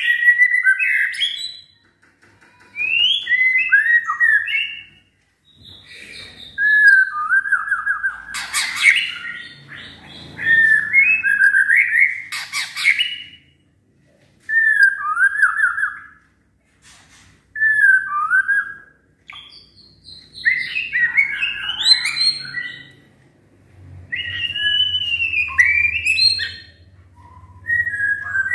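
White-rumped shama (murai batu) singing in full voice: phrase after phrase of rich whistles and fast chattering note runs, each a second or two long, with short pauses between them.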